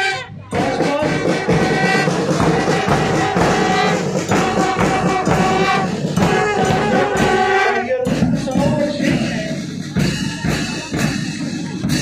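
School marching band playing trumpets and other brass over a bass drum as it marches past.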